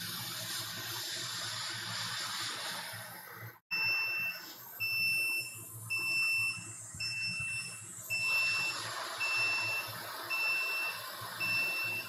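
Hot air rework station blowing with a steady hiss, then its alarm beeping in short high beeps about once a second, the station's signal that it has been running for a minute and should be switched off.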